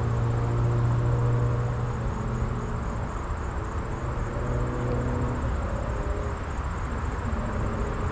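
Steady low engine hum, weakening a little after about five seconds.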